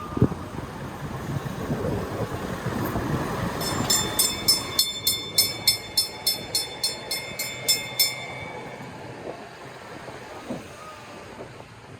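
A rapidly repeated ringing signal, about fifteen strokes in four seconds, like a warning bell, over the low rumble of a vehicle.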